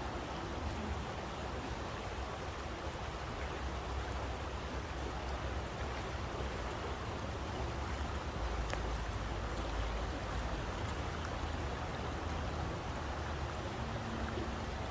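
Running stream: a steady, even rush of flowing water with a deep rumble underneath.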